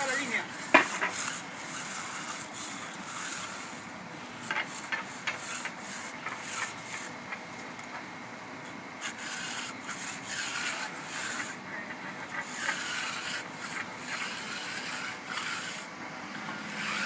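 Hand concrete-finishing tools, an edger and a float, scraping and rubbing over fresh wet concrete in repeated strokes, with a few light clicks. This is the edging and finishing of a newly poured slab.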